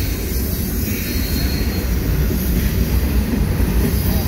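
Double-stack intermodal container train rolling past close by: a steady low rumble of wagon wheels on the rails.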